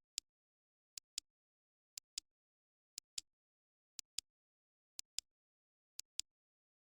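Clock ticking sound effect: a sharp double tick once a second, a lighter click followed about a fifth of a second later by a louder one, with silence in between.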